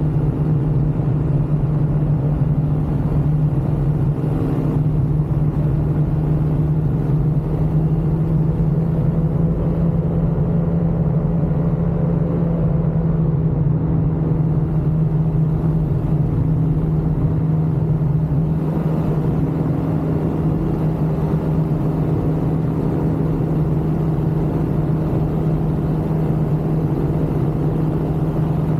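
Ultralight aircraft engine running steadily in flight, a loud continuous drone whose pitch wavers slightly now and then.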